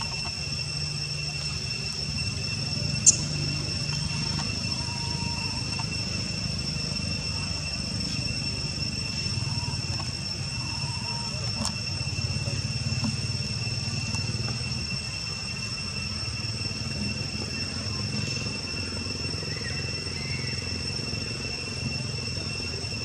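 Insects buzzing steadily in one high pitch, over a low rumble, with a single sharp click about three seconds in.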